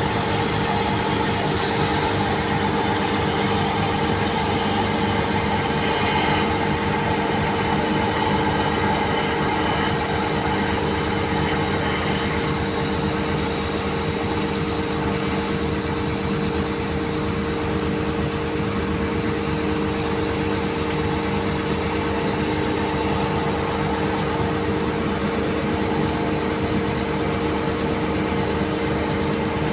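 Bulldozer's diesel engine running at a steady speed, with an even drone that holds the same pitch throughout.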